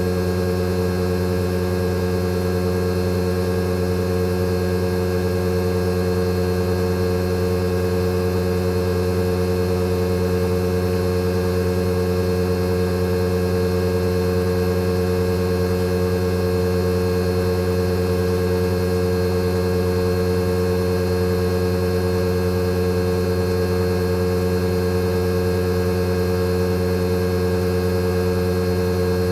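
Outdoor unit of a Fujitsu General AO-C28H inverter air conditioner running in defrost operation: a steady, unchanging compressor hum made of several held tones over a light hiss.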